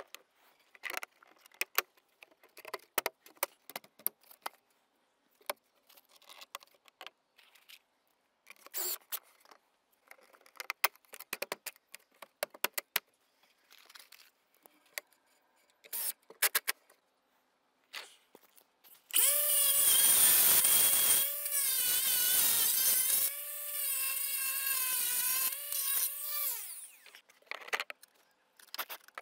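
Light clicks and knocks of plastic dry verge units being handled and fitted. Then, about two-thirds of the way in, a power drill-driver whines in three short runs, driving the screws that hold the verge units.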